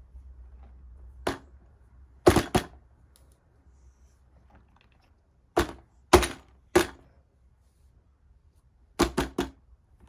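Fidget toys being handled, making sharp thunks and clicks that come singly or in quick groups of two or three.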